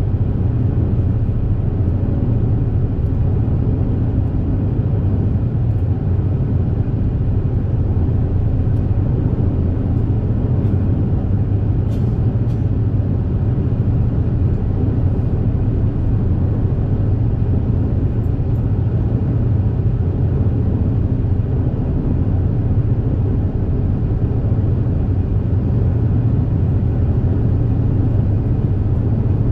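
High-speed ferry Super Jet running at cruising speed: a steady, loud, low drone of its engines with a hiss of water and air over it.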